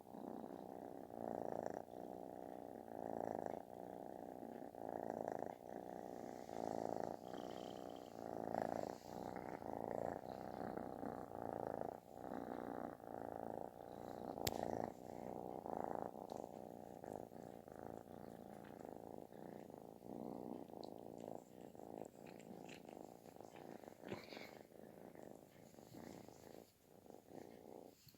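Calico kitten purring very loudly with a snore-like sound, pulsing in an even rhythm.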